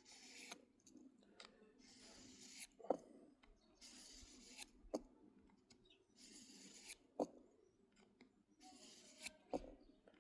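Knife blade drawn in slow, faint scraping strokes during sharpening, about one every two seconds, each stroke ending in a light click.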